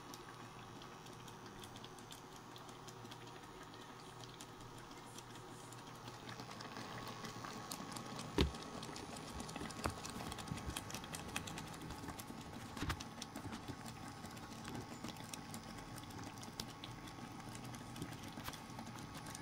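Oats and water heating in a steel pan on an induction cooktop: a steady hum with irregular small ticks and pops as the mixture comes up to a simmer. A sharp knock comes about eight seconds in and another about thirteen seconds in.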